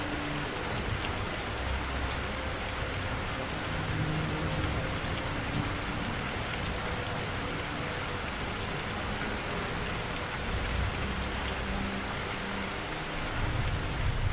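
Steady rain falling hard, with low rumbles of thunder swelling up now and then.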